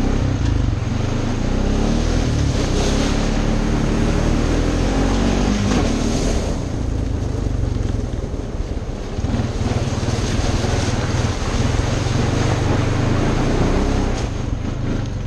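Honda ATV engine running under throttle while riding, with tyre and wind noise over it; the engine pitch rises a couple of times in the first half and eases off briefly about nine seconds in.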